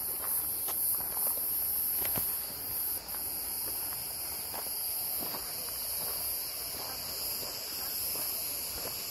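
A steady, high-pitched chorus of insects shrilling in the trees, which changes abruptly about three seconds in, with soft, irregular footsteps of someone walking.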